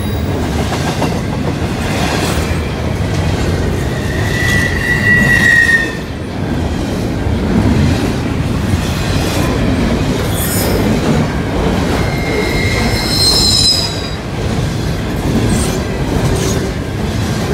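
Double-stack intermodal container cars rolling past at close range: a steady, loud noise of steel wheels on rail, with several brief high-pitched wheel squeals, the longest about four to six seconds in and more around twelve to fourteen seconds in.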